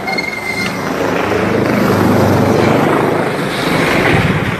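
Bell 429 twin-turbine helicopter's engines and rotor running loud and steady, heard from the cabin while its downwash churns up a thick cloud of dust on takeoff.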